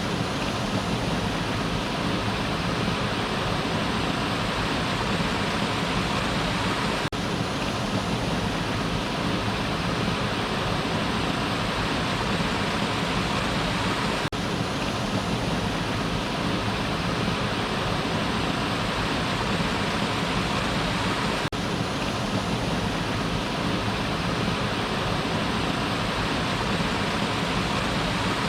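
Waterfall, water falling and rushing in a steady, even roar, with a momentary dip in level about every seven seconds.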